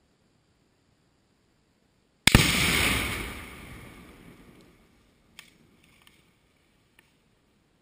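About 25 lb of Tannerite binary exploding target detonating: one sudden loud blast a couple of seconds in that dies away over about two and a half seconds. A few faint knocks follow.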